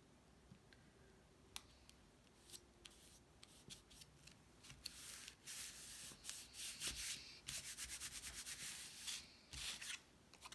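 Hands rubbing paper card stock, a run of quick back-and-forth strokes in the second half that press a glued panel flat.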